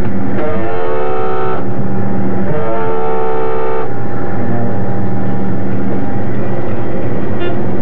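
Sturgeon-class nuclear attack submarine's diving alarm sounding two blasts, each about a second long and sliding up in pitch at its start, over a steady low hum. The two blasts follow the order to dive and signal that the boat is submerging.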